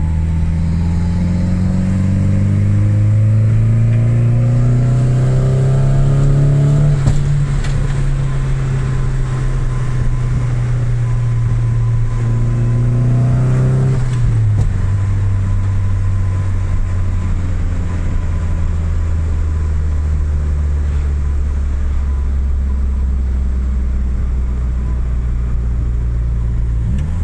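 Turbocharged SR20 four-cylinder engine running: its pitch climbs steadily for about seven seconds, holds, drops back suddenly about halfway through, then runs at a steady lower speed.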